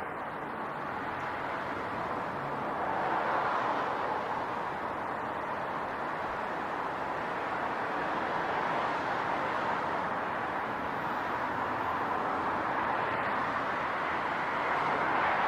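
City street traffic noise: a steady wash of passing vehicles that swells louder about three seconds in and again near the end.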